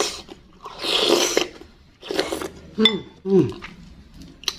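Loud mouth slurps of thick spicy meatball broth from a wooden spoon: two long slurps. Then a single clink against the ceramic bowl, followed by two short falling 'mm' hums of relish.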